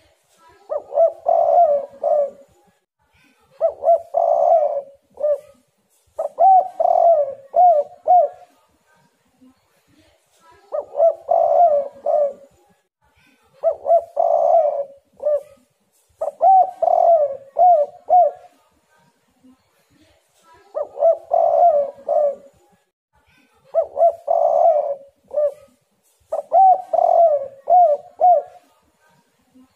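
Spotted dove cooing repeatedly: three song bouts, each made of three rolling coo phrases of a second and a half to two seconds, with a bout about every ten seconds.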